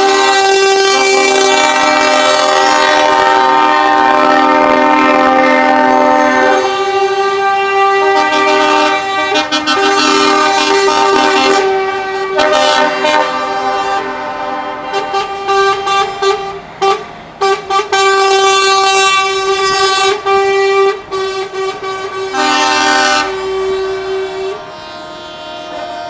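Several truck horns blowing long, overlapping multi-note chords as a convoy of trucks passes. One note is held through most of it while others start and stop, with a few brief breaks after the middle.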